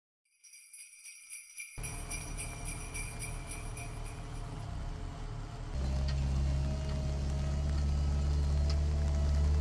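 Sleigh bells jingling in a steady rhythm, starting after a moment of silence. A low rumble joins about two seconds in and becomes a loud, steady low hum about six seconds in.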